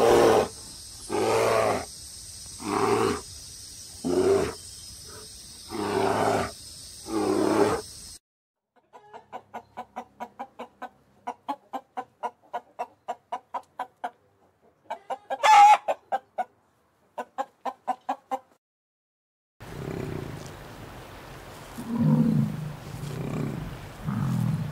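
Animal calls from three clips in turn: Asiatic black bears giving a regular series of loud calls about every second and a half; then purple swamphens clucking rapidly, with one loud shriek about halfway through; then a yak giving low grunts near the end.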